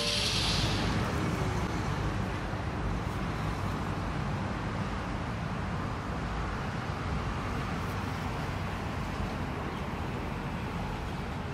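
Steady road traffic noise: a low rumble under a hiss, with a brighter hiss at the very start that fades within about a second.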